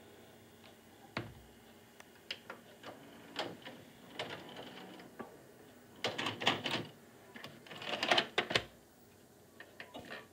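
Toshiba MV13K1W TV/VCR combo's tape mechanism clicking and whirring as a VHS cassette is stopped and ejected, with the plastic cassette clattering as it is handled. There are loud clattering spells about six and eight seconds in, then light clicks of the front-panel buttons near the end.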